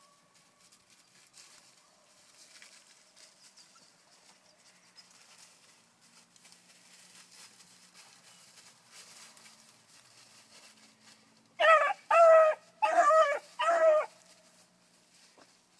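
Bluetick beagle pup barking four times in quick succession about twelve seconds in, short high calls while trailing a rabbit; before that only faint rustling.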